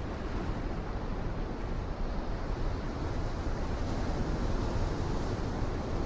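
Ocean surf washing over a rocky shoreline: a continuous rushing wash of breaking waves that swells a little in the second half, with wind rumbling on the microphone underneath.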